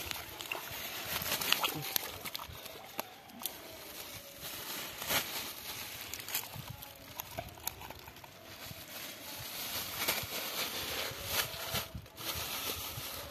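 Thin plastic bag rustling and crinkling as it is handled, with small crackles and clicks throughout.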